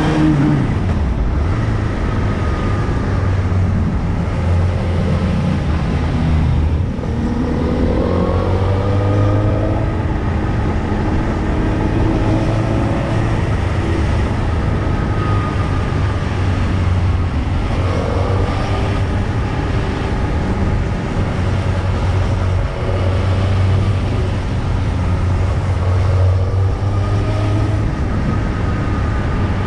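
Motorcycle engine running at low road speed, a steady low rumble whose pitch rises and falls several times as the throttle opens and closes.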